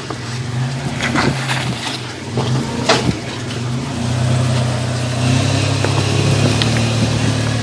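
Toyota 4Runner's engine running at low throttle as it crawls over boulders, its note swelling a little about halfway through. A few sharp knocks and crunches of tyres and underbody on rock come in the first few seconds.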